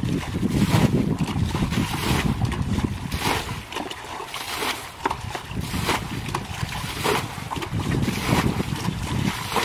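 A plastic bucket bailing muddy water out of a shallow ditch, scooping and flinging it in quick repeated strokes. Each stroke is a slosh and splash, roughly one a second.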